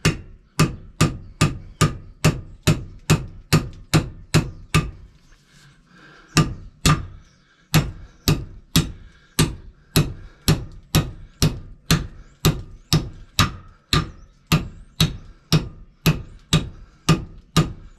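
Steady, rapid hammer blows, about three a second, on a bolt threaded into a star nut, driving the nut down inside a bicycle fork's steerer tube. There is a short pause about five seconds in before the hammering resumes.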